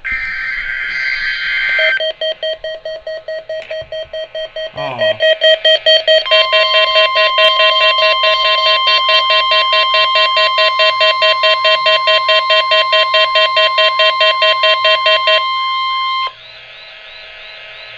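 NOAA Weather Radio Required Weekly Test alert tones. First comes a short digital data burst of the SAME header. Then rapid electronic beeping at about four pulses a second is joined about six seconds in by the steady 1050 Hz warning alarm tone, which cuts off about fifteen seconds in.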